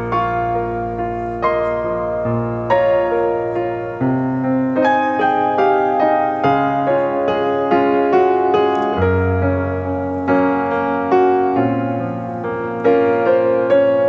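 Background piano music: a melody of single struck notes over low bass notes that change every couple of seconds.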